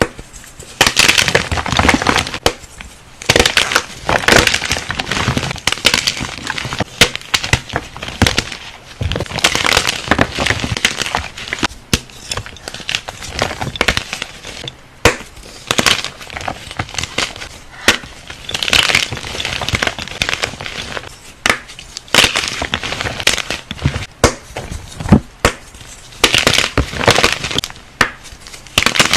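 Something crunchy being crushed, over and over. Each crush is a burst of dense crackling, and they come every second or two.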